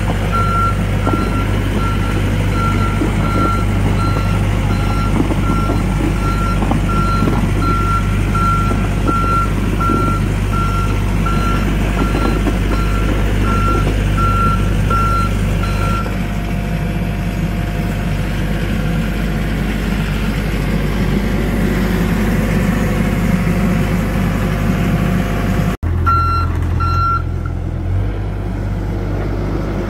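John Deere 60G compact excavator's diesel engine running steadily while its travel alarm sounds a string of evenly spaced high beeps as the machine tracks along. The beeping stops about halfway through and the engine keeps running. Near the end there is a sudden break, followed by a few more beeps and the engine running on.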